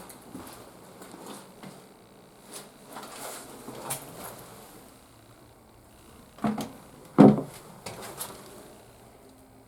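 Handling noises in a toilet room: scattered light clicks and rustles, then two loud clunks less than a second apart about two-thirds of the way in, followed by a couple of softer knocks.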